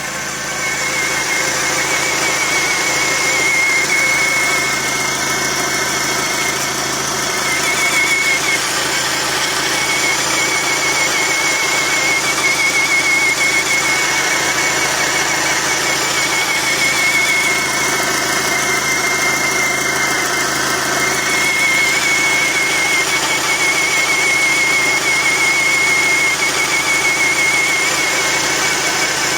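Skoda Octavia engine running steadily, with a thin, high, steady whistle from the engine bay over the engine noise; the whistle's source is unknown.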